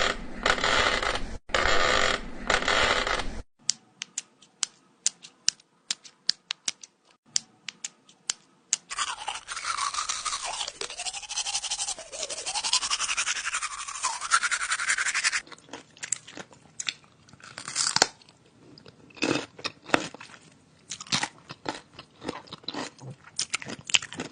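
A run of separate harsh noises: a few seconds of scraping or brushing, then a string of sharp clicks, then about six seconds of dense scraping with squeaky tones that rise and fall, then more scattered clicks and short scrapes.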